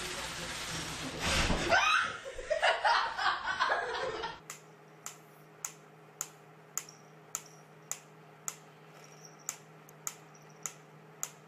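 A person laughing, then a steady low hum with sharp clicks repeating evenly, a little under twice a second.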